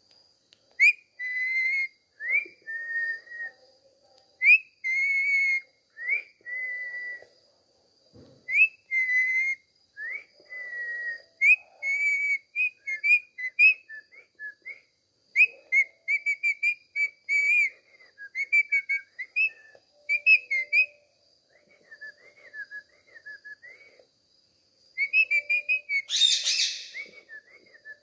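Indian ringneck parakeet whistling a long string of short notes, each sliding up quickly and then holding. Partway through these break into quicker chirpy warbles, and a short harsh squawk comes near the end.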